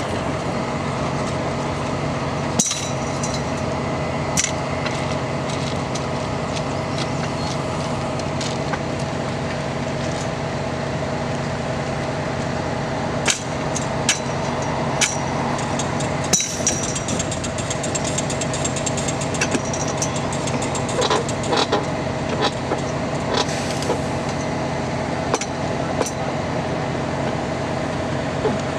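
A work truck's engine running steadily, with scattered sharp clinks and knocks of steel hand tools against the rail, more frequent in the second half.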